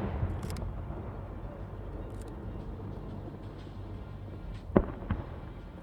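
Aerial firework shells bursting: the rumble of a burst just before fades out, then two sharp bangs come close together near the end, over a steady low background rumble.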